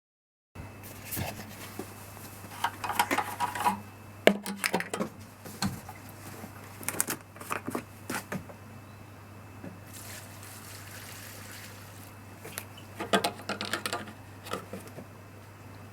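Irregular clicks, clinks and rattles of small parts being handled, in three bursts, over a steady low hum.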